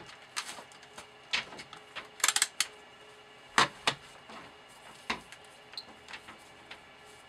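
Handling clatter as a digital multimeter and its test leads are set down on the workbench: scattered clicks and knocks, with a quick run of clicks a little after two seconds and the loudest knock about three and a half seconds in.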